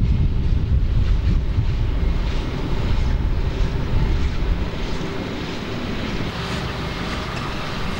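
Wind buffeting the microphone as an uneven low rumble, with a steady low drone underneath.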